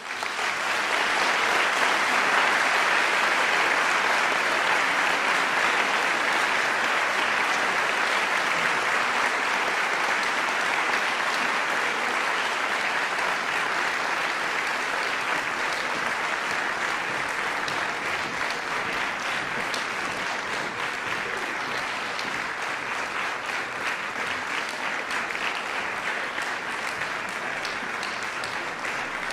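Audience applauding after a choir's song, a dense, steady clapping that starts suddenly and eases off slowly.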